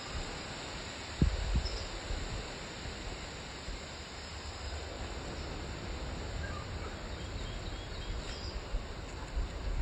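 Steady outdoor background noise with a few faint, short bird chirps, and a brief low bump about a second in.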